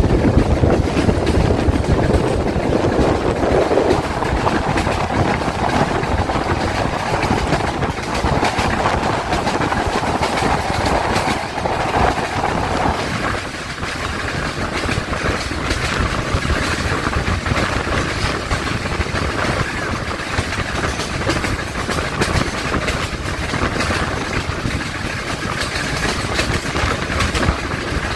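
YDM4 metre-gauge diesel locomotive running as it hauls a passenger train past, with wheels clattering over the rail joints. About halfway through, the engine's mid-pitched hum drops away while the clatter carries on.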